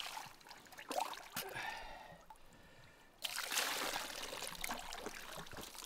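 Water poured from a container over a dog to rinse it, trickling and splashing off its coat onto the rocks, starting suddenly about three seconds in and running steadily after that.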